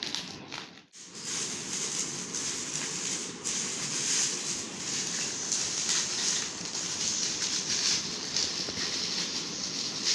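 Plastic bubble-wrap packaging crinkling and rustling as it is pulled open by hand, continuous after a brief gap about a second in.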